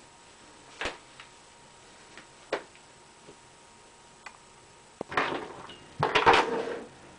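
Handling noises from bicycle puncture repair work: two sharp clicks, a few faint ticks, then two louder scraping, clattering bursts near the end.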